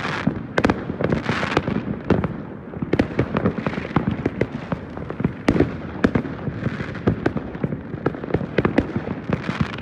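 Fireworks going off in a dense, continuous barrage: many overlapping bangs a second over an unbroken crackle.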